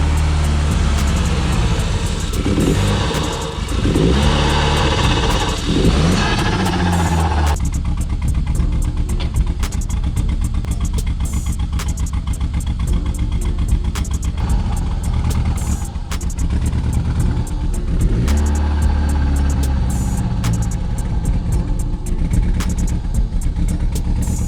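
Audi TT 1.8T four-cylinder turbo engine running with a misfire, revved up and down a few times in the first seven seconds and again about eighteen seconds in. The spitting and popping comes from one fuel injector not fully seated.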